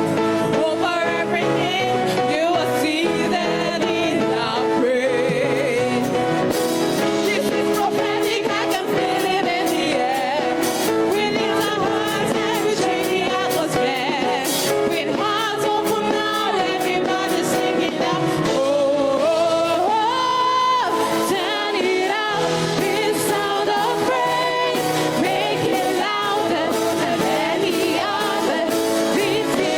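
Gospel song performed live: a lead singer over instrumental accompaniment with a steady beat.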